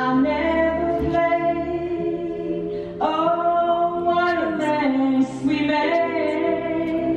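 A woman singing long, held notes of a slow song, with a live keyboard accompaniment underneath, the pitch stepping to a new held note about three seconds in and again shortly after.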